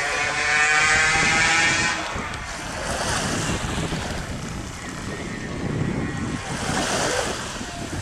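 Small sea waves washing and splashing, with wind buffeting the microphone and brighter surges of wash about three and seven seconds in. For the first two seconds a distant engine drones at a steady pitch, then drops away.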